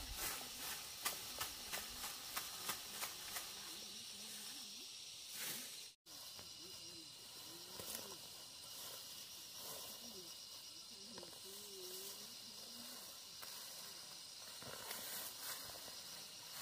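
Steady high-pitched hiss of outdoor ambience, with a quick run of sharp clicks or rustles over the first few seconds. The sound drops out completely for a moment about six seconds in, and faint wavering voices or calls sit low in the background.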